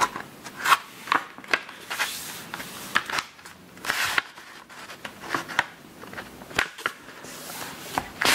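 A square sheet of origami paper being folded and creased by hand: irregular short rustles and crackles of the paper as it is bent over and pressed flat.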